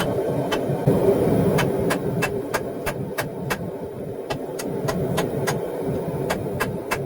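Hammer striking metal on an anvil, a few scattered blows and then a run at about three blows a second from about a second and a half in, over a steady low rushing noise from running forge equipment.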